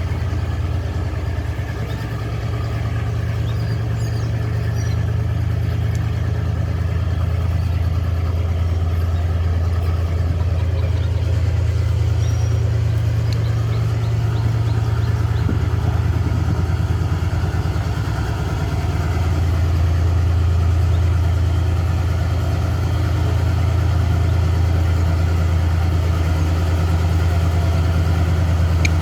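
Diesel engine of a Sri Lanka Railways W3 class locomotive running steadily: a deep, even hum that grows a little louder about two-thirds of the way through.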